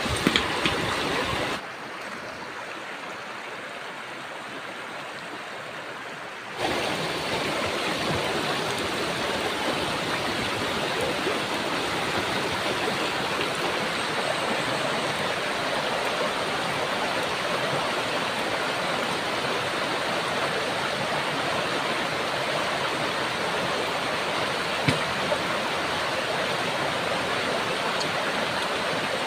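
Shallow river rushing over stones, a steady wash of water. It is quieter for a few seconds near the start, then holds steady, with a few light knocks at the very beginning.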